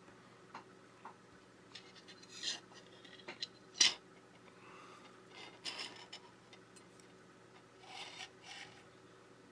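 Small handling noises as a bench power-supply lead is fitted to a bare phone motherboard on a tabletop: a few short scrapes and rustles, and one sharp click a little under four seconds in.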